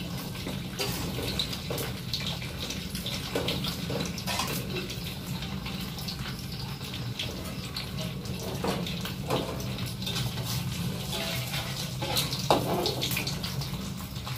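Food frying in hot oil in a wok, sizzling and crackling steadily while a metal spatula stirs it, over a steady low hum.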